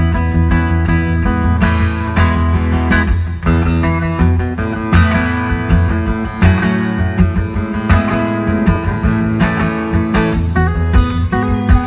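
Solo steel-string acoustic guitar played fingerstyle and amplified through a stage PA: a steady bass line under a picked melody, with many sharp string attacks.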